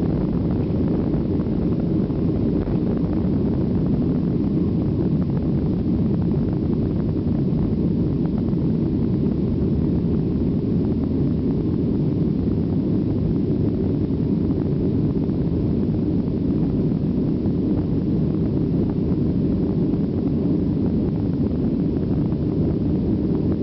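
Boeing 737 jet engines at takeoff power, heard from inside the passenger cabin: a steady, loud, low noise that holds unchanged through liftoff and the initial climb.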